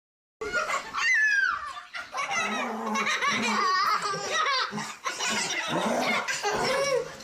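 People laughing hard, in a high, giggling voice as well as deeper belly laughs. It starts abruptly about half a second in.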